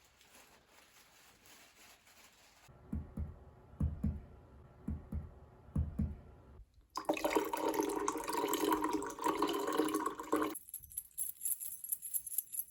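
A run of separate foley sound effects. A faint hiss gives way at about three seconds to a series of about seven soft, low thumps. Then comes several seconds of loud, steady rushing noise, and near the end a dense, high crackling.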